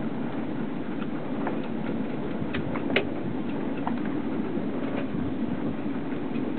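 Steady low rumbling background noise with scattered light clicks and one sharper click about three seconds in.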